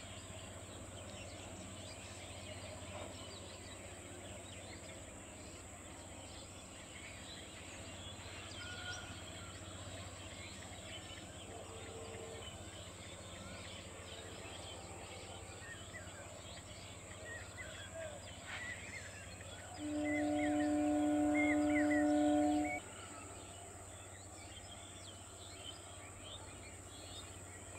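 Outdoor ambience of birds chirping over a steady high insect drone. About twenty seconds in, a train horn gives one steady two-tone blast lasting about three seconds; a few fainter horn-like tones come earlier.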